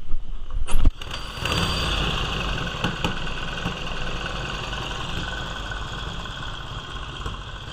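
1946 Indian motorcycle's flathead V-twin engine being started: a few sharp thumps in the first second, then it catches and runs at a steady idle.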